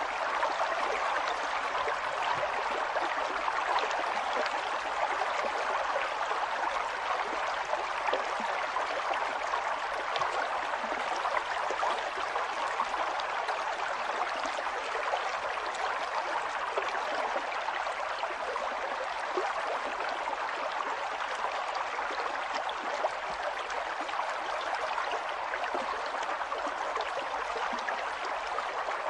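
River water flowing over stones: a steady rushing babble with fine splashes and gurgles throughout.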